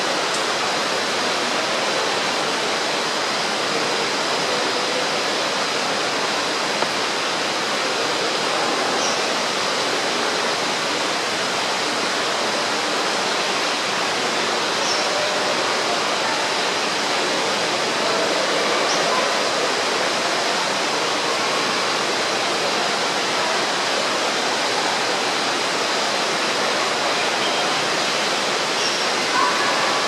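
Water falling steadily into a pool in an indoor tropical rainforest exhibit, a continuous rushing. A few faint high chirps sound above it.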